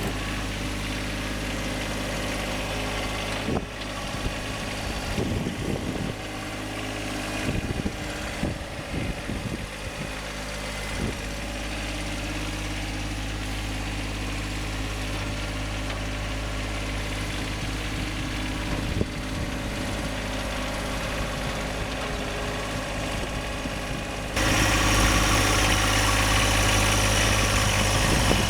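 John Deere 1025R compact tractor's three-cylinder diesel engine running steadily while pushing snow with the loader bucket. A few clicks and knocks come in the first third, and the engine gets suddenly louder near the end.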